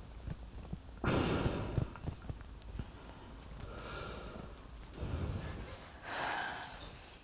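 A person breathing heavily and sighing: several separate breaths, the loudest about a second in and others spaced a second or so apart.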